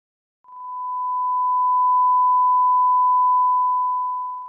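A steady 1 kHz line-up test tone, the reference tone that goes with colour bars. It fades in about half a second in and fades out at the end.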